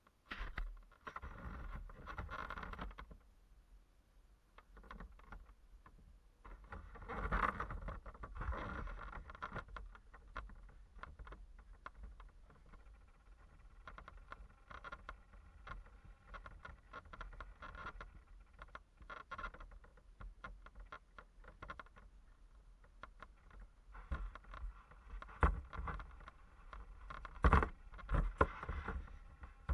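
Radio-controlled boat running on open water, heard from a camera on its deck: its motor whines in bursts, and water rushes and splashes against the hull. Near the end come sharp knocks and scrapes as the boat is lifted out at the shore.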